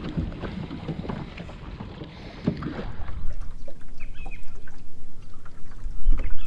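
Wind rumbling on the camera microphone. Small handling knocks and rustles come through in the first few seconds as a soft plastic lure is rigged by hand. The wind rumble grows louder near the end.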